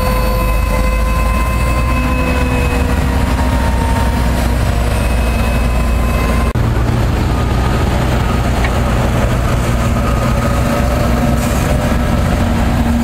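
Large farm tractors' diesel engines running steadily while pulling tillage and seed-drill implements across a field: a heavy low rumble with a steady high whine on top. The whine changes pitch abruptly about halfway through.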